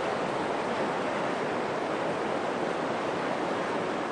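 Shallow creek running steadily over rocks and gravel, an even rushing of water.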